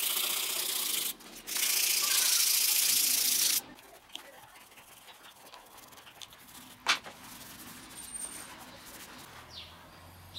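Hand sanding or rubbing of a wooden knife handle (guayubira and marmelero scales): a steady scratchy rubbing with a brief break about a second in, stopping abruptly after about three and a half seconds. Then quieter handling noise with one sharp click near seven seconds.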